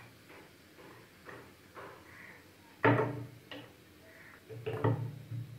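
Wooden rolling pin rolling out luchi dough on a stone board in soft repeated strokes, then a loud hard knock about three seconds in and a cluster of knocks near the end as the pin is set down and handled on the board.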